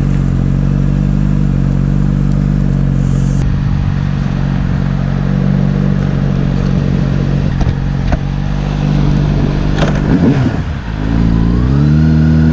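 Honda CBR600RR inline-four motorcycle engine running steadily at low revs. About ten seconds in the note drops, then climbs again as the bike pulls away.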